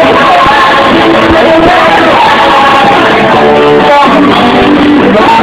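A drunk man singing loudly and heartily over music.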